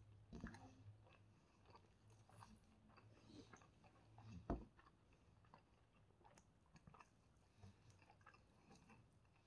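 Faint, close-up eating sounds of chicken shawarma: soft wet tearing of the meat and small clicks, with one louder thump about four and a half seconds in.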